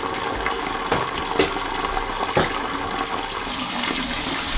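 Kitchen tap running steadily into a glass bowl of water in the sink, the stream splashing into the water, with a few light knocks. Near the end a hand swishes leaves around in the bowl under the running water.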